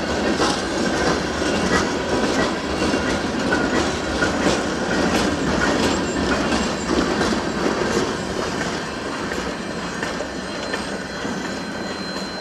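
Freight train cars rolling past, steel wheels clicking over rail joints with thin steady wheel squeal, easing off slightly in the last few seconds.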